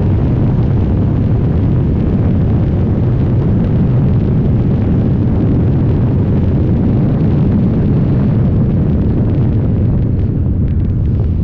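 Race car engine running hard at full throttle, heard from inside an open cockpit with wind buffeting the microphone; near the end the throttle comes off as the car slows for braking.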